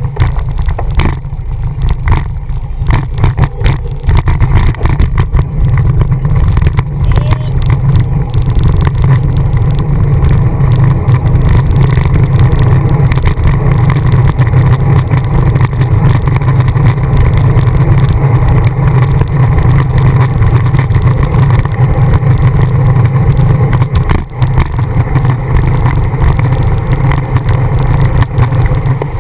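Wind buffeting the microphone of a camera mounted on a moving road bike: a loud, steady low rumble, with a few knocks and rattles in the first few seconds.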